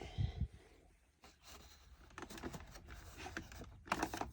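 Plastic parts of a Shark Vertex upright vacuum being handled and fitted together during reassembly: a soft knock near the start, then a few faint scattered clicks.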